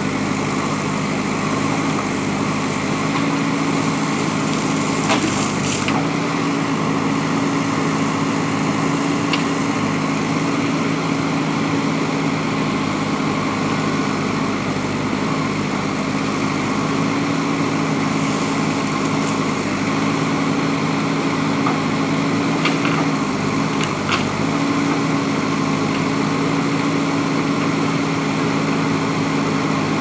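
JCB backhoe loader's diesel engine running steadily while the backhoe arm digs, its pitch stepping slightly up and down a few times. A few faint clicks come through over the engine.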